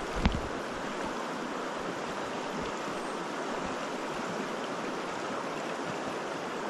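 Shallow mountain river rushing steadily over a riffle. There is a short low bump just at the start.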